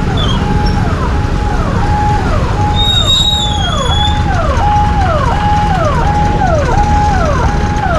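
Ambulance siren sounding in a steady repeating cycle, each cycle a held high tone that drops sharply, about one and a half cycles a second, over the low running of motorcycle and traffic engines.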